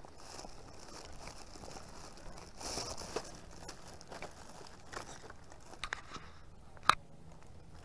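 Rustling and crinkling handling noise, louder about three seconds in, with a few short clicks, the sharpest about seven seconds in.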